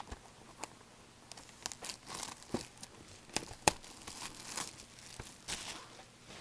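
Plastic shrink wrap being torn and crinkled off a factory-sealed box of trading cards, in irregular crackles and short tearing swishes.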